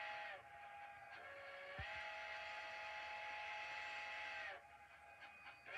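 Steam locomotive chime whistle blowing, several pitches sounding together and sagging in pitch each time it shuts off: a blast ending just after the start, a brief lower note, a long blast of about three seconds, then a couple of short toots near the end. Heard through a television's speaker.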